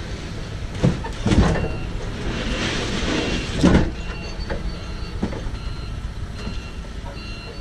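A forklift running as it sets a pallet down on a van's floor with a few heavy clunks, then backs away with its reversing alarm beeping in short repeated tones.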